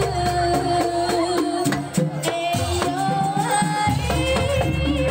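Live Banyuwangi jaranan folk music: a sustained, wavering melody line over hand-drum strokes and deep low notes, which drop out briefly twice around the middle.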